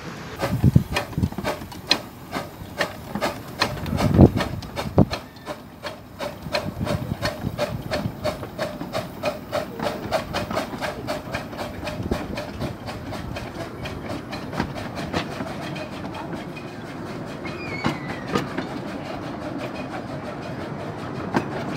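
15-inch gauge miniature steam locomotive, an LNER 04 class 2-8-0 model, passing slowly with its carriages, the wheels clicking over the rail joints in a steady rhythm. A few heavier thumps stand out in the first five seconds.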